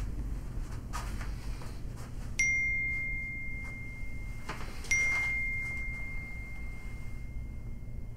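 Smartphone text-message notification dinging twice, about two and a half seconds apart; each ding is one clear, bell-like tone that rings on and slowly fades.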